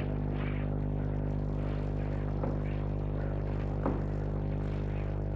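Steady electrical mains hum with a stack of buzzy overtones on an old broadcast recording, over faint background noise, with two soft knocks in the middle.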